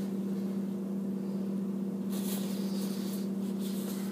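A steady low hum at an even pitch, with a brief rustle about two seconds in.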